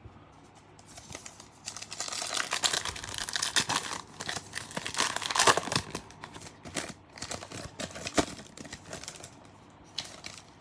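A trading-card pack wrapper being torn open and crinkled, a dense run of crackles that is loudest in the first half and thins out toward the end.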